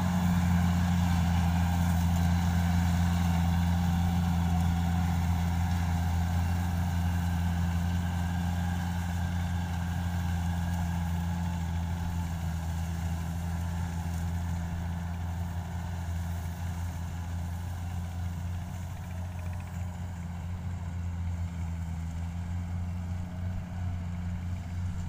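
Kubota DC70 combine harvester's diesel engine running hard while it cuts rice, a steady low drone that slowly fades as the machine moves away.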